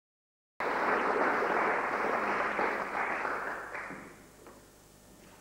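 Audience applauding, starting abruptly about half a second in and dying away about four seconds in, followed by a few faint knocks.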